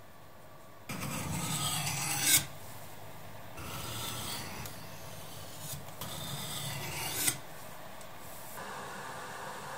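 Knife blade scraped along a flat sharpening stone in three long strokes, the first and last louder, each of those two ending in a brief sharp scrape as the edge runs off the stone.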